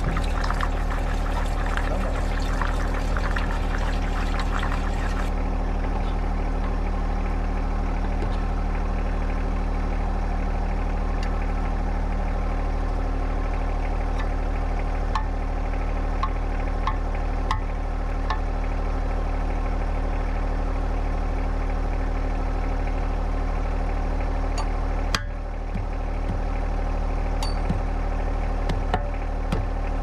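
An engine running at a steady speed, with a rushing hiss over it for the first five seconds or so and a brief dip with a click about 25 seconds in.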